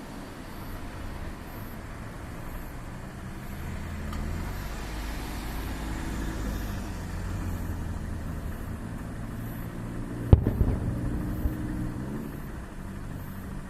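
A steady low engine hum, like a vehicle running nearby. About ten seconds in, one sharp bang is followed by a short low rumble.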